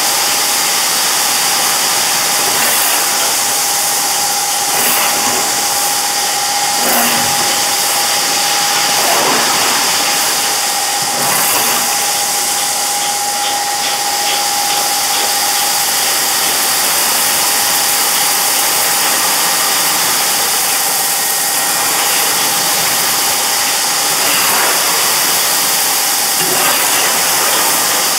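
A large rotating konpeito pan running, with a steady rushing hiss of sugar grains tumbling in it over a steady machine hum. A metal scoop scrapes through the grains a few times.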